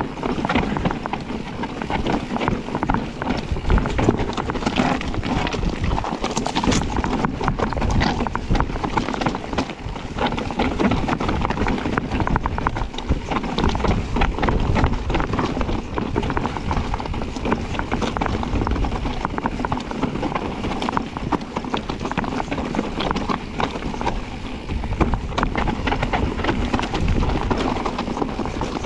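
Enduro e-bike descending a rocky trail: a constant rattle and clatter of the bike's frame, chain and tyres knocking over rock, with wind on the microphone.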